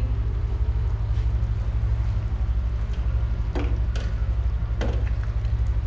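A wooden spatula stirring thick saag in a frying pan, with a few short scrapes and knocks against the pan in the second half, over a steady low rumble.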